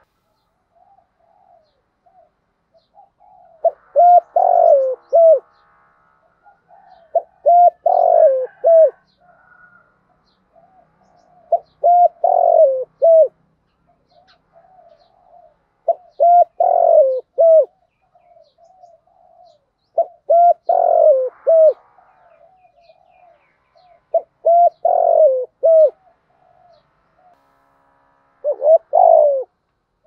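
Spotted dove cooing its song: a multi-note coo phrase repeated seven times, about one every four seconds, with fainter short coo notes in between.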